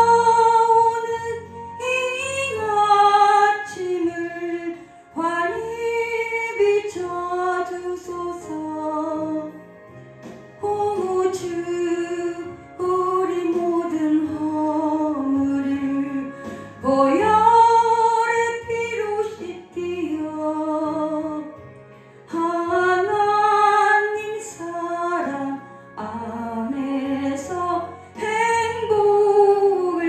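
A woman singing a Korean gospel song into a handheld microphone over instrumental accompaniment, in phrases of a few seconds with long held notes that waver with vibrato.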